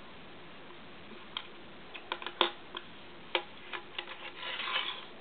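Small neodymium magnet balls (Buckyballs) clicking as they snap together: a scattered run of sharp little clicks, about nine in all. Near the end comes a short rubbing rattle as the balls are shifted about.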